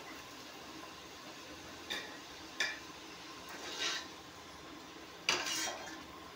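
Metal slotted spoon clinking and scraping against a metal frying pan and a steel plate as fried potato pieces are lifted out of the oil: four separate clinks, the loudest about five seconds in.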